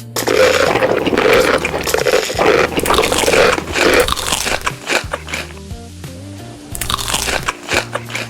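Loud crunching bites and chewing of crisp food close to the microphone, over background music with a steady bass line. The crunching runs for about the first four seconds, drops away, and comes back near the end.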